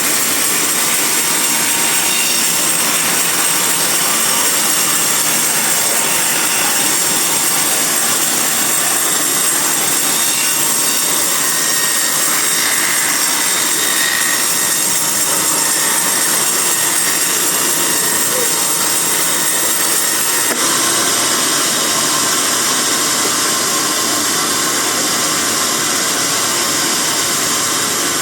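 Sawmill bandsaw running steadily through a teak log. The sound shifts slightly about two-thirds of the way through.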